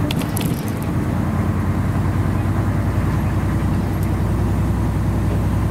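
Airport apron shuttle bus driving, heard from inside its cabin: a steady low engine rumble, with a few light clicks in the first second.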